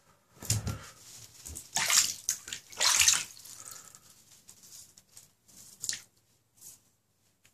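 Shallow bath water splashing and sloshing around a bosc monitor lizard being bathed by hand in a bathtub. It comes in several short bursts, loudest about two and three seconds in.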